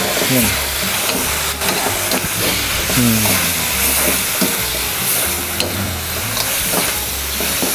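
Sliced bell peppers, onions and scallions sizzling in a hot steel wok while a metal ladle stirs and scrapes them, with a few sharp clicks of the ladle against the wok.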